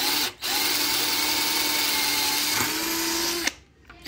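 Worx 12 V cordless drill-driver boring through wardrobe board with a twist drill bit. A brief blip on the trigger, then the motor runs at full speed for about three seconds with a steady whine. The whine steps slightly higher in pitch shortly before it stops.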